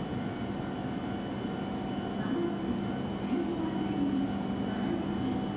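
Shinkansen station ambience: a steady electrical hum with several constant tones and faint, wavering voice-like sounds, with no train moving past.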